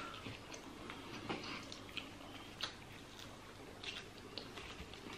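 Quiet chewing and mouth sounds from eating roast chicken and lettuce, with a few faint scattered clicks and crackles.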